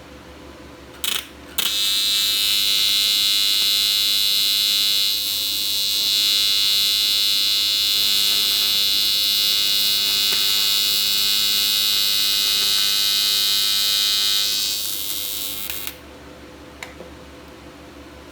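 A loud, steady electric buzz with a high whine, starting about a second and a half in after a brief blip, and cutting off suddenly near the end.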